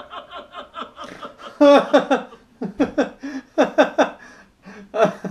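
Men laughing in quick repeated bursts, faint chuckling at first, then loud, hearty laughter from about a second and a half in, with one more short burst near the end.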